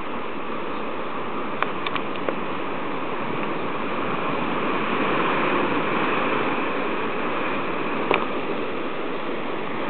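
Surf washing on a rocky shore: a steady hiss that swells a little midway. A few sharp clicks come about two seconds in and once more near the end.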